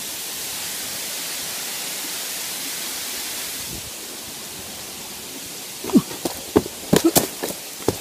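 Steady rushing of a waterfall, dropping a little in level a few seconds in. Near the end comes a quick run of sharp clicks and knocks.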